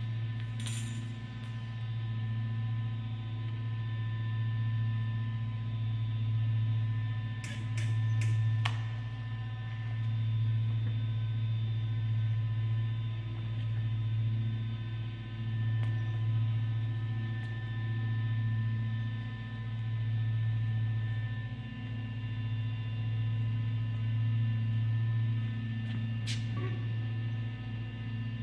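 Electric welder humming steadily, swelling and easing every few seconds, during welding of a steel handle onto the truss beater. A few sharp clicks sound about a second in, a quick cluster around the middle, and one more near the end.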